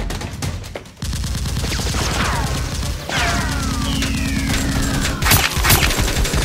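Rapid gunfire sound effects in bursts, starting about a second in, with falling whistling sounds and two loud bangs about five seconds in, over background music.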